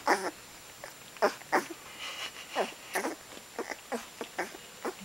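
Two-week-old Otterhound puppies squeaking while they nurse: an irregular run of short squeaks that slide in pitch, about three a second.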